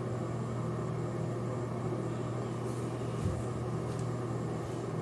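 Steady low hum with faint background hiss, and a soft bump a little past three seconds in.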